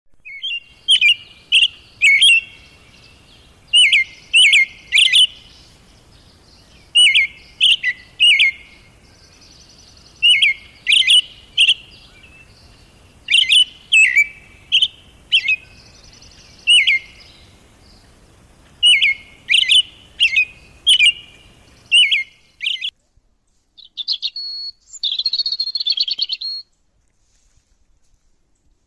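A songbird singing loud, short phrases of three or four sharp notes, repeated every two to three seconds. Near the end the song stops, and a different buzzy trill follows for a couple of seconds.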